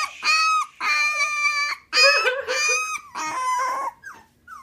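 Three-week-old Goldendoodle puppy crying in four loud, high-pitched squeals, each about half a second to a second long, a puppy crying for attention.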